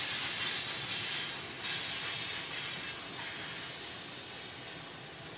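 Freight train cars rolling away along the track: a steady rushing hiss from the wheels on the rails that slowly fades as the train recedes.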